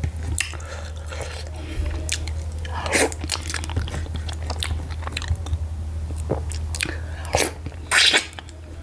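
Close-miked eating sounds of garri fufu with ogbono soup eaten by hand: scattered wet chewing and lip smacks over a steady low hum, with a louder burst of mouth sounds near the end as a handful goes into the mouth.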